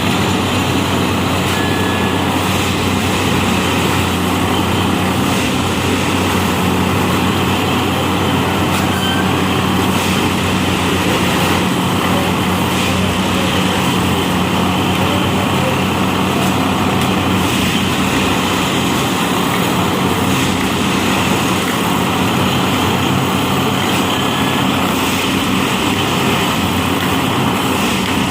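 A Unimat railway track tamping machine running: a loud, steady mechanical drone with a low hum that does not change.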